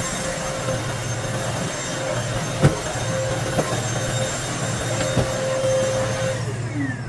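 Cordless stick vacuum cleaner running steadily while its floor head is pushed over carpet, with a few sharp clicks.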